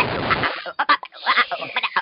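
Experimental noise music: a dense hiss of noise that cuts off about half a second in, then a choppy, stuttering run of short squawk-like vocal and electronic fragments.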